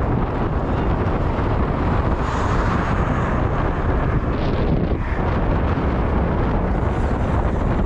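Steady wind buffeting on the microphone of a rider's camera while moving at speed, with road noise mixed in.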